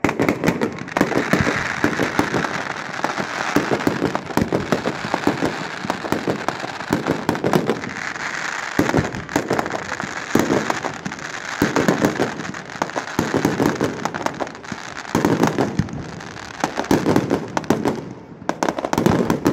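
Aerial fireworks display: many shell bursts in rapid succession over a continuous dense crackling, starting suddenly and going on without a break.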